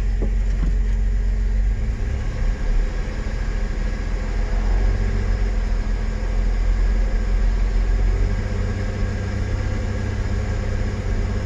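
Chevrolet S-10 pickup engine idling, heard from inside the cab as a steady low rumble. It is running with a miss, which the owner puts down to a probable blown head gasket.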